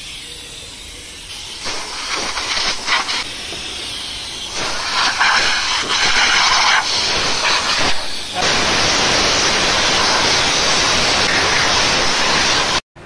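Compressed-air blow gun on a shop air hose hissing as it blows down a car's rear bumper. It comes in short stop-start blasts, then one long steady blast that cuts off suddenly near the end.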